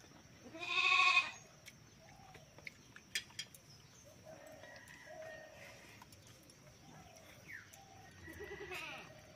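A farm animal bleats once, loud and wavering, about a second in. A second, quieter call comes near the end.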